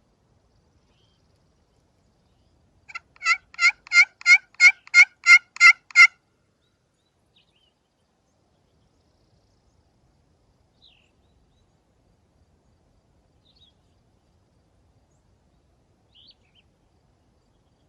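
A series of about ten turkey yelps, evenly spaced at about three a second and growing louder, followed later by a few faint short bird chirps.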